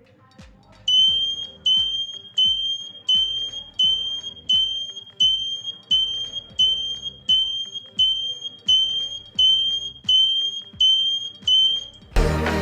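Buzzer in a homemade 12 V relay flasher circuit beeping on and off, about 16 short high beeps at roughly one and a half a second, each starting with a click from the relay, like a bicycle turn-indicator ticker. Background music comes in near the end.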